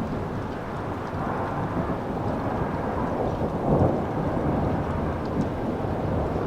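Thunder rumbling continuously overhead, swelling briefly a little under four seconds in, with light rain ticking faintly.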